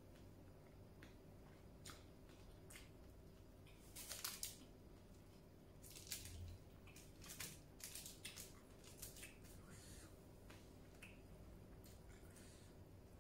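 Faint scattered crackles and clicks of fingers working rice and salted fish in an aluminium foil tray, over a low steady hum. The loudest cluster comes about four seconds in, with more between six and nine seconds.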